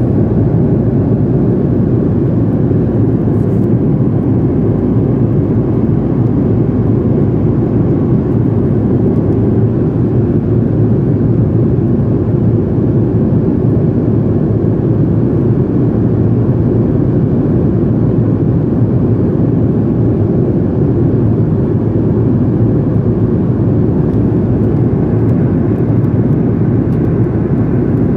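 Jet airliner cabin noise in flight: a steady, deep rushing of engine and airflow noise heard from a window seat over the wing, holding the same level throughout.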